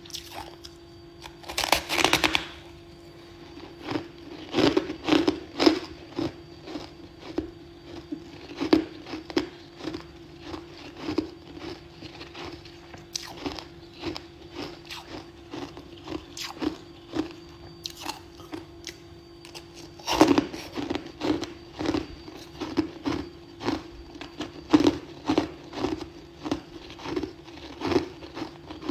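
Close-miked crunching of freezer frost being bitten and chewed. There is a loud, dense crunching bite about two seconds in and another around twenty seconds, with quick, steady chewing crunches in between.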